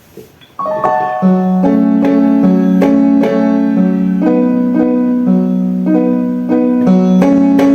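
Electronic keyboard played in a piano voice: a melody over chords that starts about half a second in, played to show how lighter or harder attack on the keys makes it sound like a real piano.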